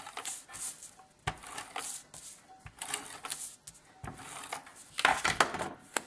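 Card stock being handled with small clicks and rustles, then an adhesive tape runner drawn across the card in a louder rasping stretch about five seconds in, laying glue tape for layering the paper.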